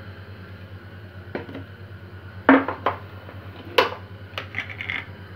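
Kitchen clatter of a metal tin being handled on a countertop: several separate knocks, the loudest about two and a half seconds in, and a short ringing clink near the end, over a steady low hum.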